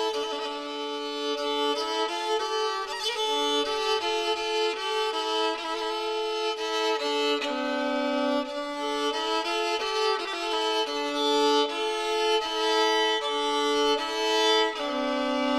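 Background music: a violin playing a melody, each note held for about half a second to a second and a half.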